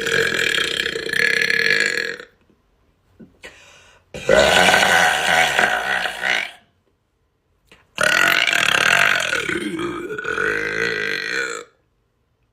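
A woman burping: three long, loud belches with short silences between them. The first ends about two seconds in, and the last runs for over three seconds.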